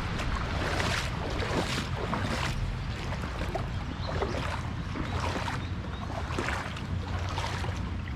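Footsteps wading through shallow creek water, a slosh roughly every second, over a steady low rumble of moving water and wind on the microphone.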